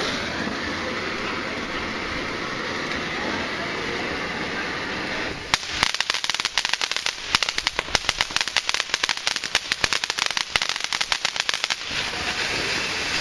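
Ground firework fountain hissing steadily as it sprays sparks. About five seconds in it breaks into rapid, irregular crackling, many small pops in quick succession for roughly six seconds, then settles back to a steady hiss.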